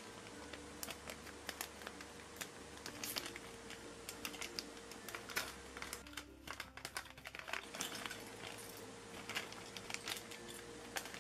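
Foil Playmobil blind bag crinkling and crackling as fingers tear it open and pull it apart, in quick irregular crackles.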